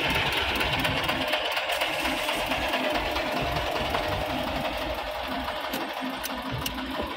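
A small car's engine running steadily as the car pulls off the ferry and moves along a dirt road.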